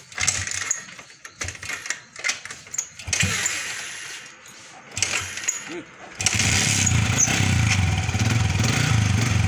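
Yamaha Vixion's fuel-injected single-cylinder four-stroke engine being started on its electric starter: several short, irregular cranking bursts, then the engine catches about six seconds in and runs steadily.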